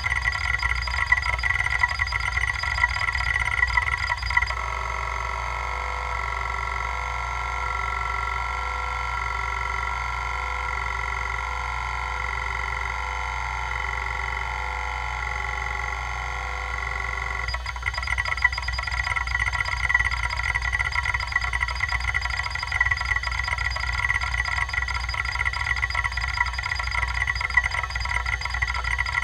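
Damaged Kalok KL-320 MFM hard drive, running on three heads with one arm cut off, seeking under a benchmark. First comes a rapid, uneven chatter of random seeks. From about four seconds in it settles into a smoother, even buzz of track-to-track stepping. Near seventeen seconds it switches back to rough, chattering random-access seeks.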